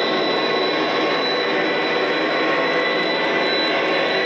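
O scale MTH model diesel train running, its onboard speaker playing an MTH Proto-Sound 3.0 EMD SD40-2 diesel engine sound file over the rolling of the train along the track. A steady running drone with a constant high whine.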